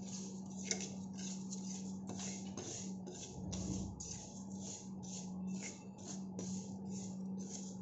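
Metal spoon stirring and scraping dry moong dal around a pan as it dry-roasts, a quick rasping stroke two or three times a second, over a steady low hum.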